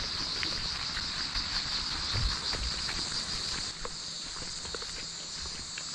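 A steady, high-pitched insect chorus that pulses throughout, with footsteps on a dirt bush track underneath.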